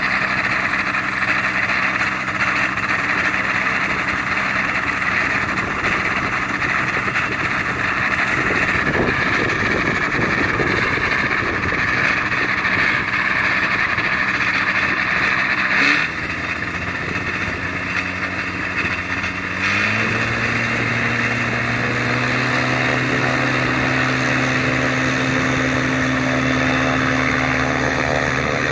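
Fly Synthesis Storch ultralight's propeller engine running steadily on the ground. About sixteen seconds in the sound dips briefly, and about twenty seconds in the pitch steps up a little and holds as the revs rise.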